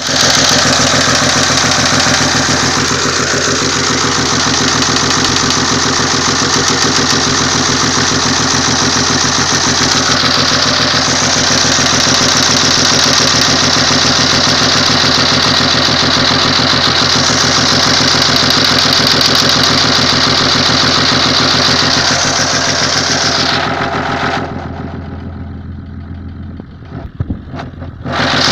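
Land Rover Discovery 3's 2.7-litre TDV6 diesel running steadily with a rhythmic knock that shows up only once the engine is hot; the cause is unknown to the owner. Near the end the sound turns muffled and quieter for a few seconds, then comes back.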